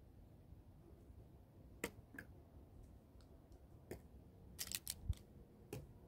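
A handful of light, sharp clicks and taps, with a quick cluster of them near the end: drink bottles being picked up and set down on a stone ledge.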